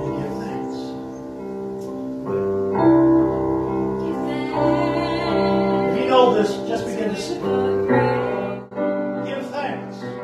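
Keyboard playing slow, held chords that change every couple of seconds. About six seconds in, a voice is briefly heard over it.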